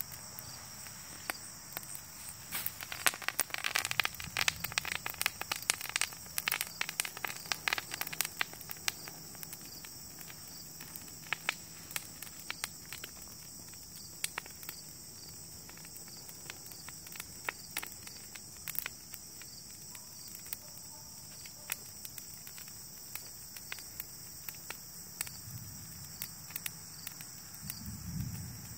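Campfire crackling and popping as dried, cut plant branches burn, the pops coming thickest a few seconds in and thinning out later. Insects trill steadily behind it.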